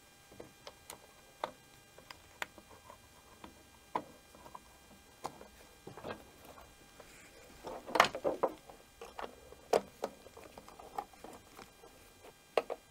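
Scattered plastic clicks and knocks as an air filter is seated and its plastic cover pressed onto the air filter base of a Briggs & Stratton Quantum engine, with the loudest cluster of knocks about eight seconds in.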